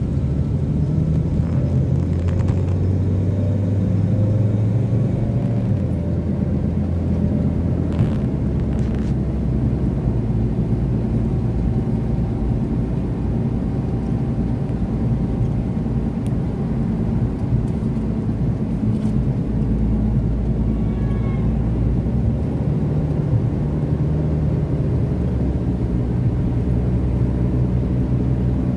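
Car engine and road noise heard inside the cabin while driving: a steady low rumble whose engine note shifts a few times.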